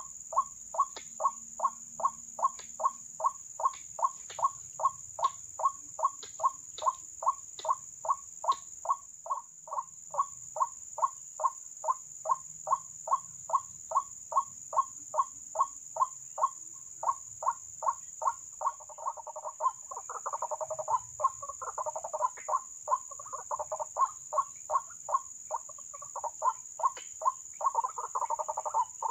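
White-breasted waterhen calling, a short harsh note repeated steadily about twice a second; from about two-thirds of the way through, more calls overlap and the calling grows busier. A steady high-pitched hiss runs underneath.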